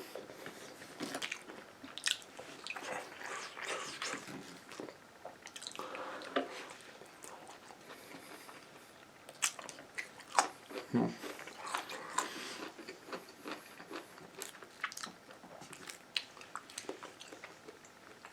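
Close-miked chewing and biting of food: a string of short, irregular mouth clicks and smacks, busiest around ten to twelve seconds in.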